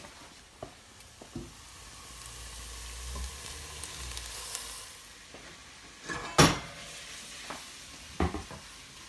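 Onions, garlic and ginger sizzling in hot oil in a pot as chopped tomatoes go in, the sizzle swelling for a couple of seconds. About six seconds in comes one sharp loud knock, the loudest sound, then a few smaller knocks of a utensil against the pot near the end.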